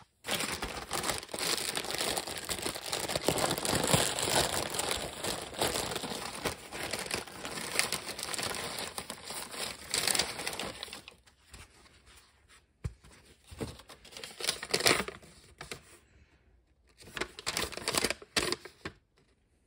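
A plastic bag and paper wrapping crinkling and rustling as a foam block is unwrapped by hand. It is steady for about the first ten seconds, then breaks into shorter, separate rustles.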